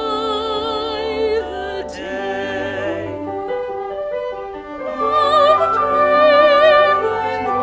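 Soprano and baritone singing an operetta duet with wide vibrato over a small orchestra led by strings. The voices ease off in the middle while the orchestra carries on, then return louder about five seconds in.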